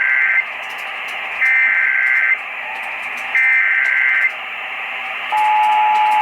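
Emergency Alert System SAME header heard over AM radio: three short bursts of screeching digital data tones, about a second each and two seconds apart, the first already under way, marking the start of an emergency alert. About five seconds in, the steady two-tone EAS attention signal begins, all over a constant AM static hiss.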